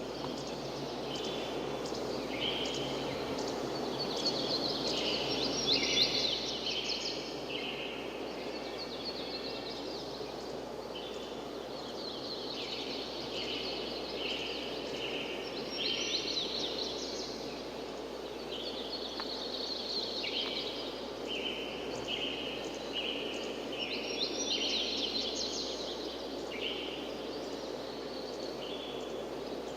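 Birds chirping and calling over and over in short high notes, over a steady background rush of outdoor noise.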